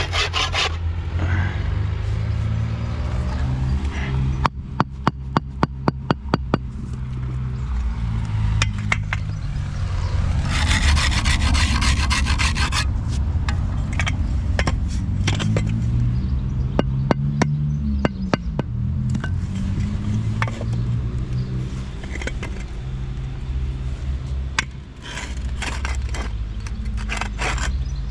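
An engine running steadily. Its pitch rises and falls again about two-thirds of the way through. Early on there is a quick run of sharp clicks, and in the middle a few seconds of harsh scraping noise.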